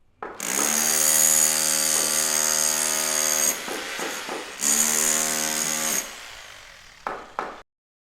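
Electric power tool running in two runs, the first about three seconds and the second shorter, each with a steady hum and a high hiss, then winding down; two short knocks near the end.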